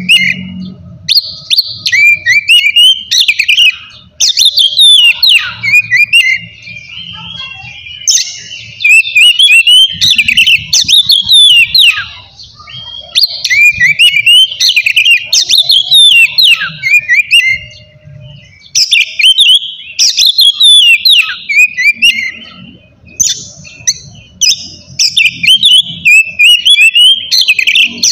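Oriental magpie-robin (kacer) singing loudly and continuously, in phrases of a few seconds each made of rapid sliding whistles and sharp notes, with short pauses between them.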